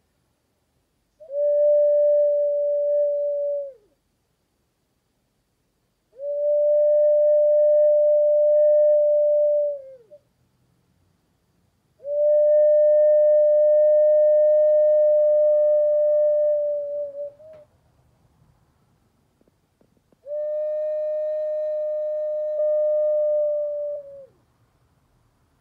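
Four long, steady notes on the same pitch, each held about three to five seconds and sagging in pitch as it cuts off, with short silences between them.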